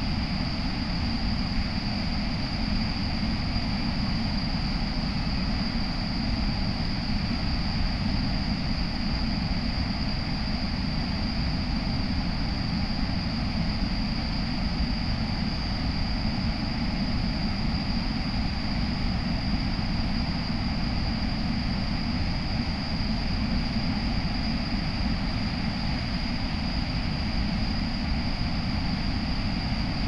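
Waterfall pouring down a broad rock face into a pool: a steady rushing roar of falling water, with a steady high-pitched whine above it.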